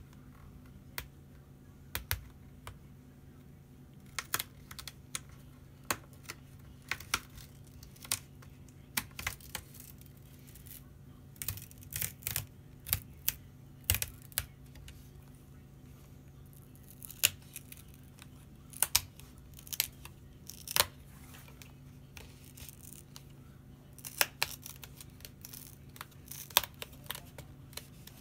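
Plastic LCD bezel of an HP Chromebook 14a being pried off by hand: irregular clicks and snaps, coming in clusters, as its clips let go and the strong adhesive holding it pulls free.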